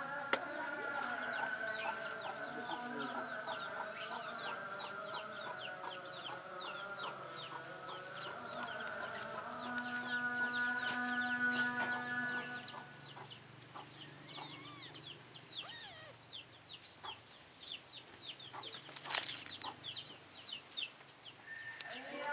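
Chicks peeping in quick, high, falling chirps, several a second, over a layer of steady held tones. Both thin out a little past halfway, leaving fainter chirps and one brief sharp noise near the end.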